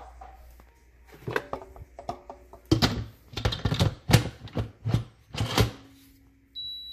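Lid of an Emeril Lagasse pressure cooker being fitted and twisted shut: a quick run of clacks and clicks, then the cooker gives one short high beep near the end.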